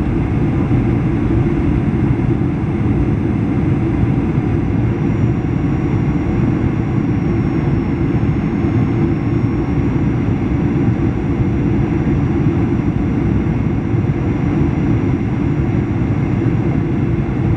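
Cabin noise inside a Boeing 737-800 on approach to land, heard from a window seat over the wing: its CFM56-7B engine and the airflow make a steady low rumble. A faint high fan whine above it drops slightly in pitch about five seconds in.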